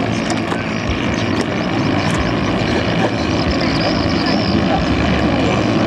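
Small 6–7 horsepower engines of two ketinting longtail racing boats running flat out, a steady loud drone that grows slightly louder after about two seconds.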